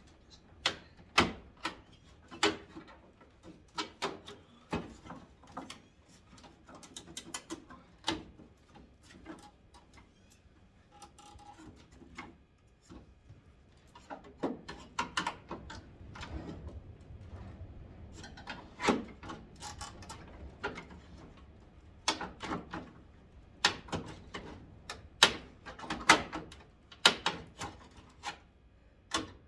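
Irregular sharp clicks, knocks and scrapes of a screwdriver prying at the plastic headlight trim of a 1991 Ford Ranger, whose clips are holding tight.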